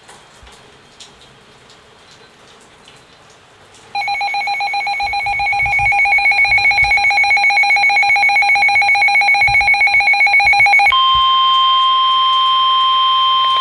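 Emergency weather alert tones. After a few seconds of low room noise, a loud, rapidly pulsing electronic alarm tone starts about four seconds in. About eleven seconds in it switches to a steady single tone, the NOAA Weather Radio warning alarm tone that comes before a warning broadcast.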